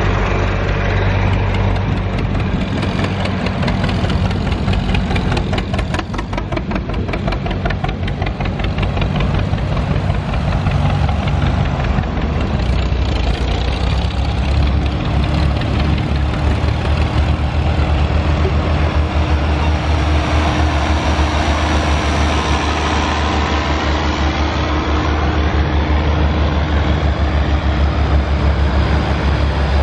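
Engines of a line of vintage farm tractors, John Deere and Farmall, running steadily as they drive past one after another at slow parade pace. A John Deere's deep engine beat comes on strongest in the second half as it passes close, pulling a hay wagon.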